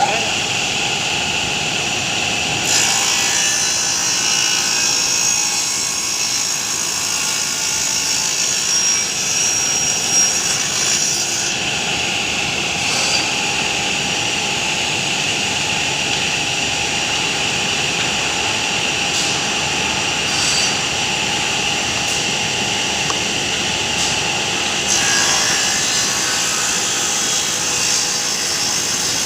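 A machine running steadily, with a constant whine over a hiss, and the high hiss swelling and easing at times.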